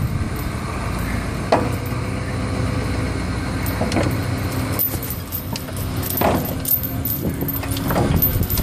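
Tow truck running and driving along the street, a steady low rumble, with the metal suspension chain clinking now and then.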